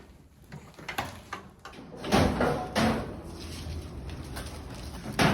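A few knocks and clatter of things being handled, starting about two seconds in.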